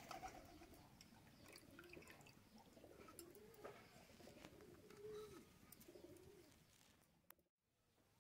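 A dove cooing faintly in a run of low, wavering hooting notes, with a few light clicks, cutting off just before the end.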